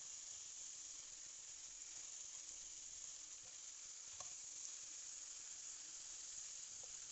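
Chicken pieces in masala sizzling faintly in a pan while being stirred with a spatula, with a couple of light spatula ticks about four seconds in and near the end.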